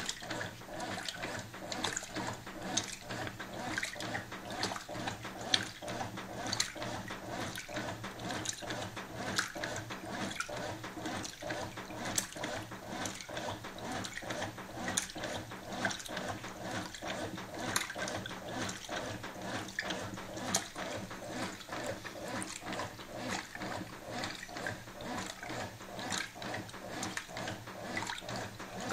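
Brastemp Clean 6 kg top-loading washing machine agitating a double duvet on normal agitation: a steady motor hum under the churning and sloshing of water and wet bedding, with frequent small clicks.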